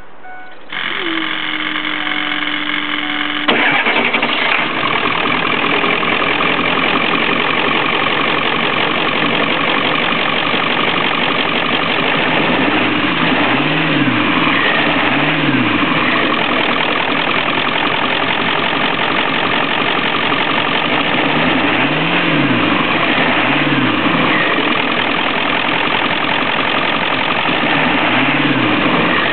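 Ford 7.3 Power Stroke turbo-diesel V8 being cranked by its starter for about three seconds, then catching and settling into a steady idle. It is heard with the hood open beside its S&B aftermarket intake.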